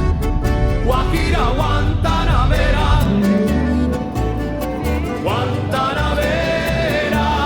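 A song playing: a singing voice over instruments with a steady beat.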